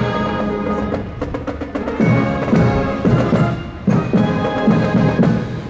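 Marching brass band playing, with sustained brass chords over steady drum strokes.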